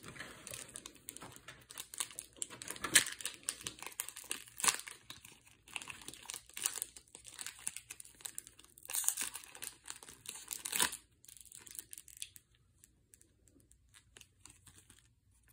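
Foil wrapper of a Pokémon trading card promo booster pack being torn open and crinkled by hand, a dense run of sharp crackles and rips. It stops about eleven seconds in, leaving only faint handling sounds.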